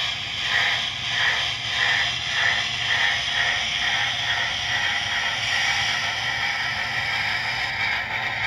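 Bachmann model Allegheny steam locomotive's onboard sound system playing steam chuffs through its small speaker over a steady hiss as it moves forward, about one and a half chuffs a second at first, running together later.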